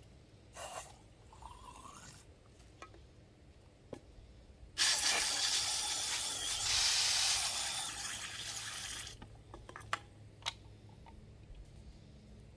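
Water from a garden hose rushing into an empty aluminium Pepsi can, for about four seconds starting about five seconds in, followed by two light clicks.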